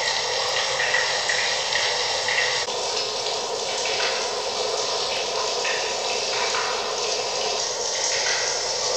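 A steady rushing hiss like running water, with faint high tones flickering in and out over it.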